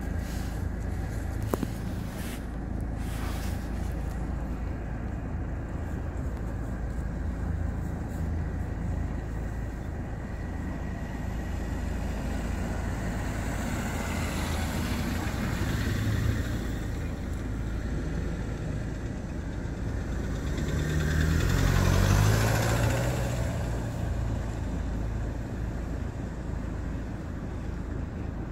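Steady low hum of a stopped car's engine idling. A car drives past close by about halfway through, and a louder vehicle passes a few seconds later.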